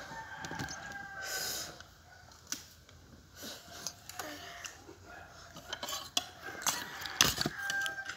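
A rooster crowing, once at the start and again near the end, over crisp crunches and clicks of water apples (tambis) being bitten and chewed.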